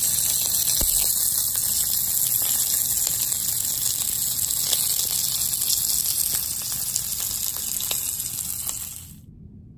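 Sausages frying in a pan: a steady loud sizzle with scattered small crackles and pops. It eases slightly, then cuts off suddenly near the end.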